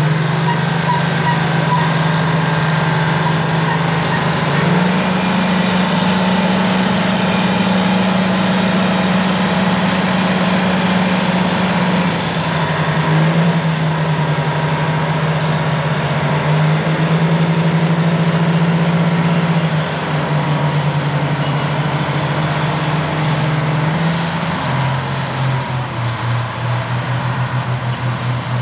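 Twin GM Detroit Diesel 6-71 two-stroke diesel engines of a Euclid TC-12 crawler dozer running. The engine speed steps up and down several times as the dozer works, then drops near the end to a lower, pulsing idle.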